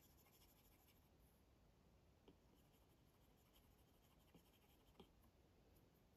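Faint scratching of an Apple Pencil tip drawing short sketching strokes across an iPad screen, with a few light taps of the tip on the screen, the loudest about five seconds in.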